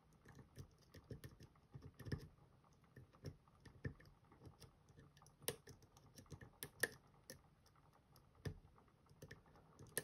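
Faint, irregular small metallic clicks and taps of a lock pick pushing the pins of a Van Lock padlock (a tubular-style lock) while it is held under tension, with a few sharper clicks past the middle. The pins are being probed one by one to find which holes go deepest, as a guide to where to tension.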